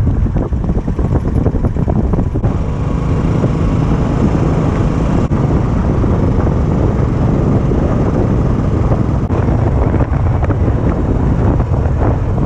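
Riding noise from a scooter on the move: wind rushing over the camera microphone, with engine and road noise underneath. The sound changes abruptly about two and a half seconds in and again near nine seconds.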